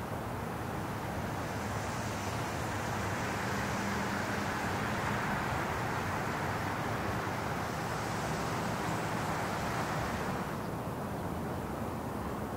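Steady city traffic noise: a wash of road and tyre noise, louder through the middle and easing back a little over ten seconds in.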